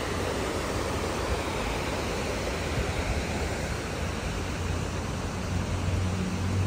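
Steady rush of water pouring down the walls of the 9/11 Memorial reflecting pool's waterfall.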